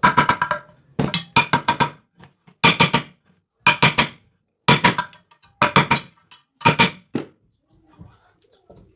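Metal ceiling fan parts clicking and clinking in quick rattling bursts, about one a second, each with a short metallic ring.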